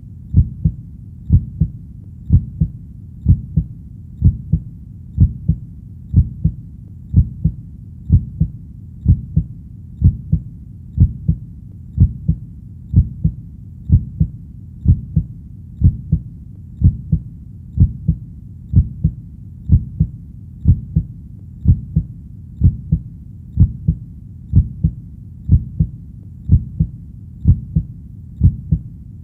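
Heartbeat: steady, evenly spaced double thumps (lub-dub), about one beat a second, over a low steady background rumble.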